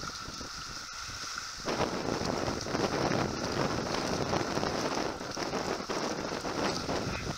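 Water rushing and splashing along the hull of a Farrier F-31 trimaran under sail, with wind on the microphone; the rush of water grows louder about two seconds in.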